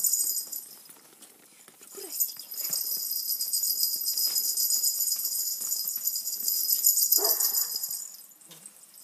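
Steady high-pitched metallic jingling that stops for about two seconds soon after the start and again near the end. A Boerboel puppy gives one short whine about seven seconds in.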